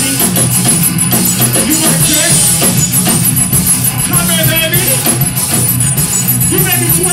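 Rock band playing live on drums and guitar with some singing; loud and continuous.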